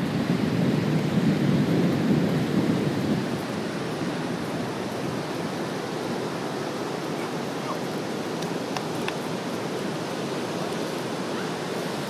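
Wind buffeting the microphone over the steady rush of ocean surf, with the wind rumble heavier in the first three seconds or so.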